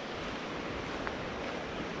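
Steady rushing water from a mountain stream or waterfall, an even wash of noise.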